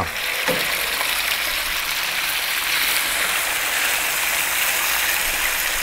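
Chunks of raw lamb sizzling as they hit hot sunflower oil in a frying pan to sear: a steady hiss that starts as the meat goes in and holds evenly.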